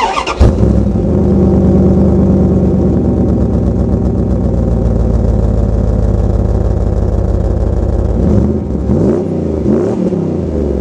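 Dodge Ram 1500 pickup engine heard through a Thrush glass-pack muffler with a side-exit tip. It starts and catches with a brief flare about half a second in, settles into a steady idle, then is revved briefly a couple of times near the end.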